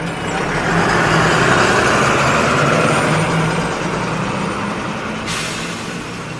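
Bus sound effect: the engine running, growing louder over the first second and then slowly fading, with a sudden high air-brake hiss about five seconds in.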